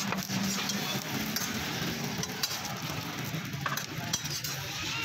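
Metal spatulas clinking and scraping now and then against a flat steel griddle, over a steady background din.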